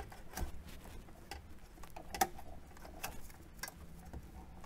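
A handful of light plastic clicks and rattles, irregularly spaced, as the wiring harness connectors are unlatched at their safety lock tabs and pulled from the back of a factory car stereo head unit.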